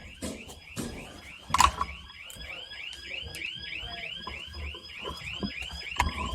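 An electronic alarm sounding continuously as a rapid run of high chirps, about four a second. Scattered clicks and knocks sound over it, with one sharp knock the loudest about a second and a half in.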